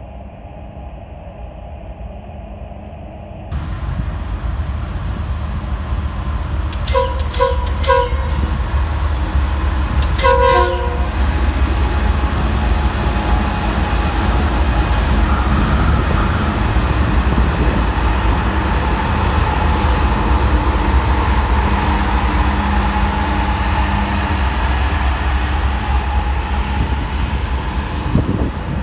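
Norfolk Southern freight train passing close by, led by a DC-to-AC converted diesel locomotive: the locomotive's engine noise comes up sharply about three seconds in, and its horn sounds several short blasts around seven to eight seconds in and once more a couple of seconds later. After that the freight cars roll past with a steady rumble of wheels on rail.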